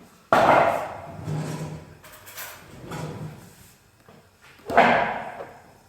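Kitchenware handling while mixing egg yolks into rice pudding: two loud, sudden scraping sounds, one just after the start and one near the end, each dying away over about a second, with fainter clatter between.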